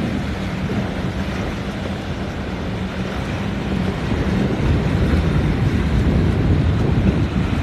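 Motorboat engine running with a steady hum that grows louder and deeper about halfway through, over wind buffeting the microphone.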